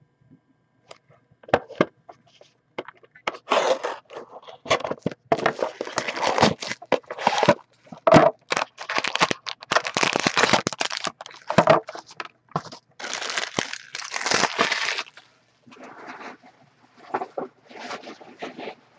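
A sealed trading-card box being unwrapped and opened by hand: plastic wrapping and cardboard crackling in irregular bursts, quieter in the last few seconds.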